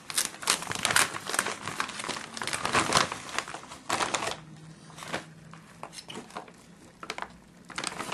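Bubble-lined plastic mailer envelope crinkling as it is handled and opened by hand: dense crinkling for about four seconds, then quieter, scattered crinkles.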